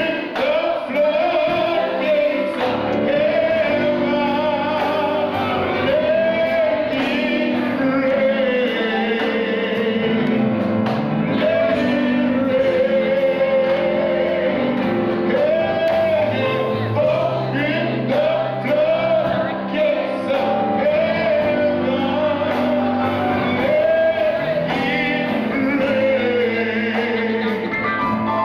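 A man singing a gospel song into a microphone, his voice swooping and sliding through the phrases, with instrumental accompaniment, echoing in a large hall.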